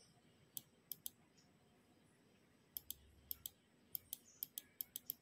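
Computer mouse button clicked repeatedly: a few separate clicks, then a run of quick clicks that speeds up to about five a second near the end, stepping the time forward.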